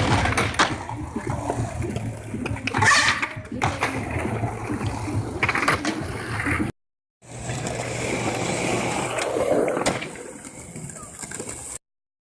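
Skateboard wheels rolling on concrete with sharp clacks of the board, in short clips that cut off abruptly twice.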